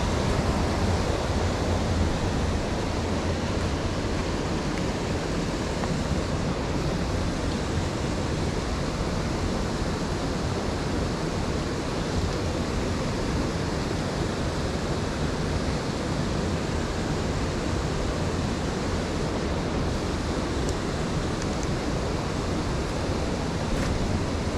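Steady rushing of a clear mountain stream's current running over rocks and boulders.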